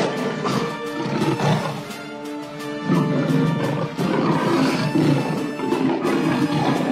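A lion growling as it attacks a cheetah, in two spells with a short lull about two seconds in, mixed with background music.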